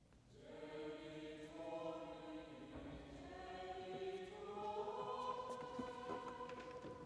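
Choir singing long, held chant-like notes in several voices, entering softly just after the start and swelling, with the chords shifting slowly.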